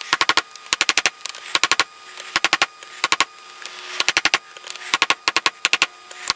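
Hammer tapping on a steel bearing to drive a new rear wheel bearing into a Honda CBR1000F's hub, with the old bearing used as a drift. The taps come in quick runs of four or five, a run every half second to a second, with a faint ring after them.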